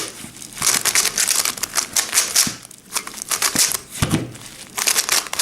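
Qiyi Big Sail speedcube being turned by hand: rapid plastic clicking and clacking of the layers, in several bursts with short pauses between them.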